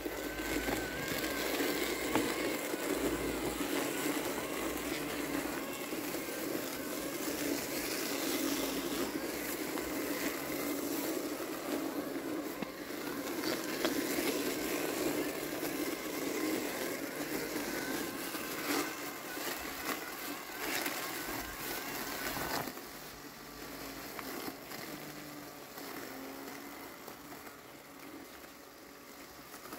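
Landxcape LX790 robotic lawn mower running, its motors driving it and its blade cutting through tall, wet grass and weeds, with a faint wavering motor whine over a steady rushing noise. The sound drops clearly about two-thirds of the way through.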